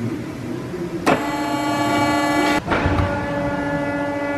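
Electric vehicle lift's motor and hydraulic pump starting with a click about a second in and running with a steady whine as the car is raised, cutting out for an instant partway through, then running on.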